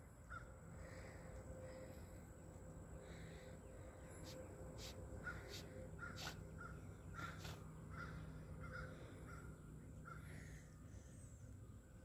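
Faint bird calls from nearby trees, a series of short calls repeating every second or so over a faint steady low hum.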